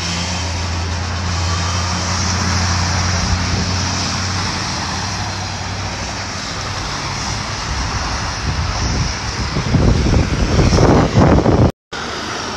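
Pickup trucks and cars driving on a wet, slush-covered road: a steady engine hum with tyres hissing through water and hail slush. A louder rushing stretch comes about ten seconds in, and the sound drops out briefly near the end.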